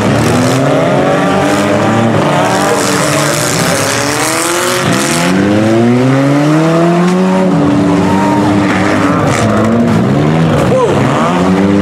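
Several small cars' engines revving up and down at once, each pitch rising and falling as the demolition-derby cars accelerate, reverse and ram each other.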